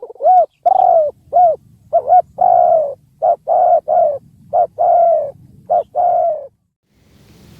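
Spotted dove cooing: a series of short, arched coo notes in quick groups, stopping about six and a half seconds in. A steady rushing noise starts near the end.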